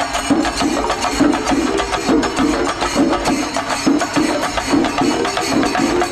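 Shinkarimelam percussion: chenda drums beaten fast with sticks over cymbals, a loud, dense, continuous rhythm with a beat repeating a few times a second.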